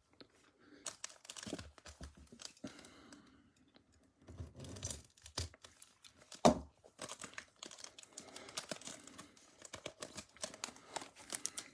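Foil wrapper of a Bowman Platinum trading card pack being torn open and crinkled. It comes as many short, scattered crackles, with one louder crackle about six and a half seconds in.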